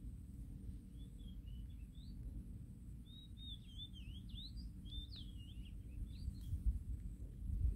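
A small songbird twittering: a quick run of short, high chirps from about a second in until about six seconds in, over a low rumble, with a few thumps near the end.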